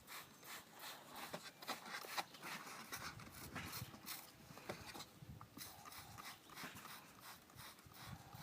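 Hand-trigger spray bottle squirting coil cleaner onto an air conditioner's coils: faint, quick, repeated sprays, about two or three a second.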